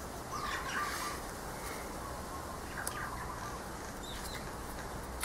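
Common mynas calling in a few short bouts. There are a couple of light clicks from tarot cards being handled.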